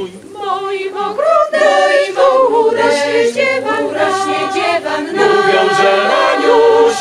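Mixed choir of women's and men's voices singing a traditional Polish song a cappella, with a brief dip at the very start as a new phrase begins.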